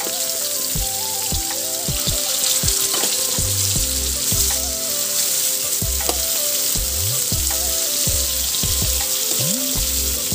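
Marinated chicken pieces sizzling steadily as they fry in hot oil in a wok.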